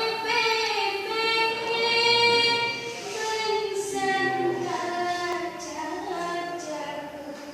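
A woman singing unaccompanied in her natural voice, with no microphone, holding long high notes that bend and waver in an ornamented, melismatic line.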